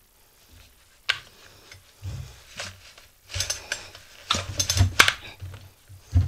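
Hard plastic clicking and rattling as the parts of a Homelite string trimmer's throttle handle are worked together on the shaft, with dull bumps from handling. A sharp click comes about a second in, then a busier run of clicks and rattles from about three to five seconds in, and another sharp click near the end.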